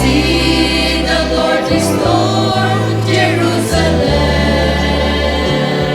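Vocal group singing a gospel song in close harmony, holding long chords over a bass part that moves to a new note every second or two.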